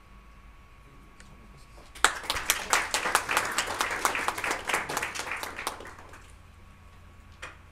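Audience applauding, starting about two seconds in and fading away after about four seconds.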